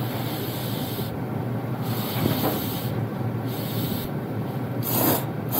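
Ramen noodles being slurped up: about four hissing slurps, each about half a second to a second long, over a steady low hum.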